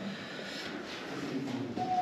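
Faint, indistinct voices of other visitors in stone tunnels, with a higher call gliding downward near the end.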